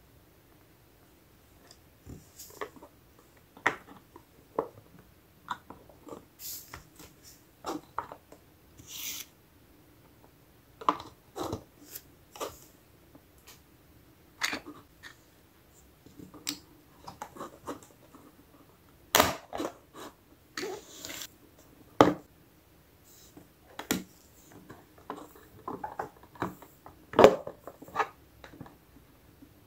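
Irregular clicks, taps and light knocks of small plastic toy-kitchen pieces being handled, with little doors opened and closed and parts set down, a few knocks louder than the rest.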